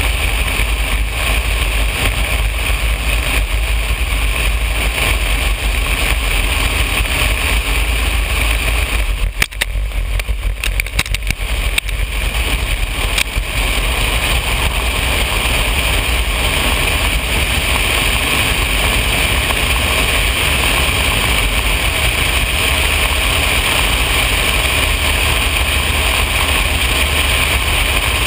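Steady drone of a Cessna 180 floatplane's six-cylinder piston engine and propeller, with a low hum and a hiss. It is briefly broken by a dip and a few sharp clicks and knocks about ten seconds in, then settles back to the same steady level.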